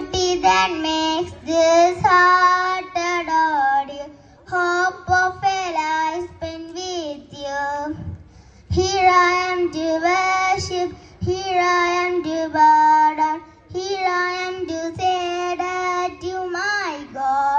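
Young girls singing a Christian worship song into a microphone over a PA, one clear melody in phrases with short breaths between them.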